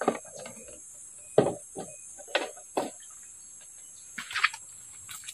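Steady high-pitched insect drone, with a handful of short, sharp knocks spread through it, the loudest about a second and a half in.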